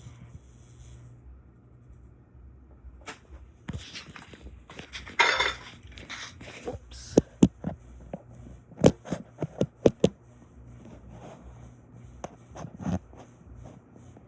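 Faint steady hum of a running ceiling fan motor under a series of sharp clicks and knocks. A louder scraping, rustling burst comes about five seconds in, and a quick run of sharp clicks follows between about seven and ten seconds in.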